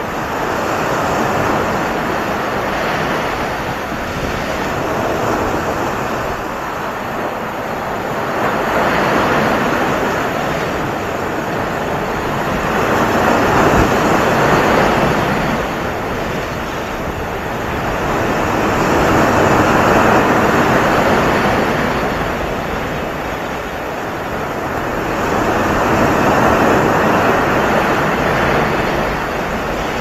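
Ocean waves breaking: a steady rush of surf that swells and eases in slow surges about every five to six seconds.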